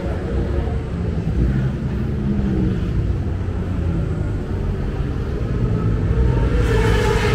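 Motorcycle engines: a steady low rumble, with a louder, higher engine note coming in near the end.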